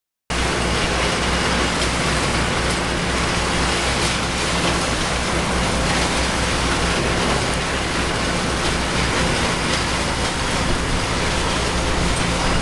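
Komatsu BR200T-1 tracked tub grinder running steadily, its Komatsu SA6D125E2-A six-cylinder diesel giving a constant low hum under a dense, even wash of machine noise.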